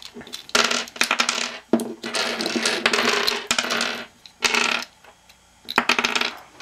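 Hard plastic Holey Megaminx puzzle pieces clicking and rattling as they are popped off the core and clatter onto a wooden table, in several irregular bursts with short pauses between.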